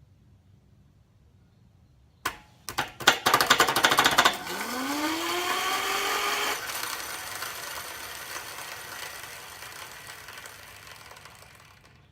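Electric scooter motor driving a bicycle chain, switched on with a sharp click, then rattling loudly for about two seconds as the chain comes off the sprocket. The motor then spins freely with a whine rising in pitch, cuts off suddenly, and the spinning parts run down with a fading rush.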